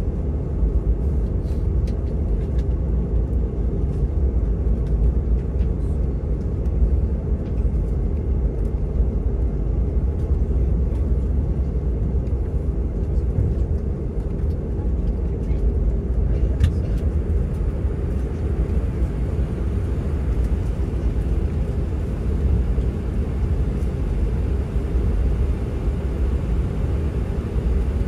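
Airbus A319 cabin noise: a steady low rumble of the engines and airframe, with a faint steady hum on top and a few light ticks.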